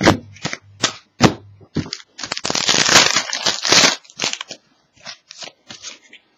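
Trading cards and their foil packaging being handled: a run of sharp clicks and snaps, with a denser stretch of crinkling and crackling about two seconds in that lasts over a second.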